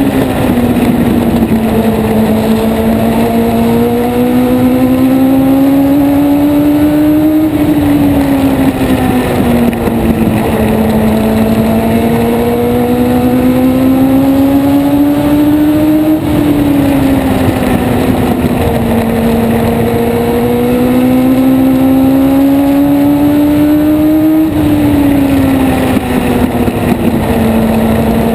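Race car engine heard from onboard, running hard at high revs around an oval. Its note climbs steadily along each lap, then drops sharply as the throttle is lifted for a turn, about every eight seconds.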